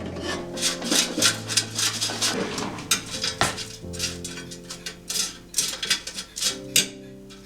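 Kitchenware clattering: a quick run of clinks and scrapes, several a second, as dishes and utensils are handled, easing off near the end.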